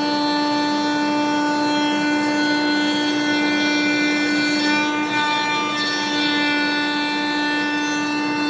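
CNC router spindle running with a steady whine while a surfacing bit cuts across a wooden cutting-board blank; the tones shift slightly about five seconds in as the machine changes its pass.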